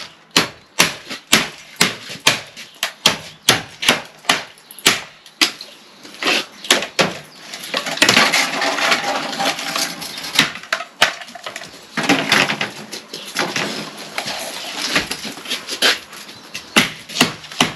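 Hammer blows, about two a second, knocking at an old conservatory sill and its brick base. Around the middle the blows give way for a few seconds to a harsh scraping noise, then resume.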